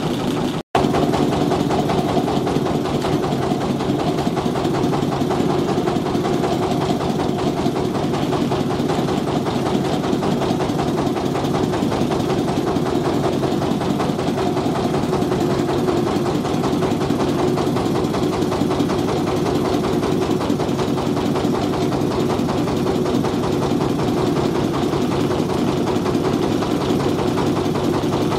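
Motorcycle engine running at a steady pace, with a very short break in the sound less than a second in.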